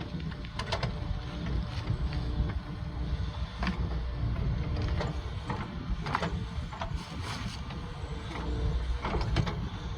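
Earthmoving machine running with a steady low engine rumble, with sharp clanks and knocks scattered through it, the loudest about six and nine seconds in.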